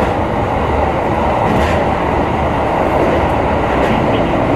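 Tokyo Metro Ginza Line subway train running between stations in the tunnel: a steady, loud rumble of wheels on rails and running gear, heard from on board.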